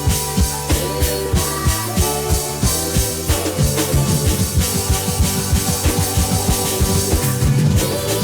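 Live band music: a drum kit keeps a steady beat over bass and held instrument notes.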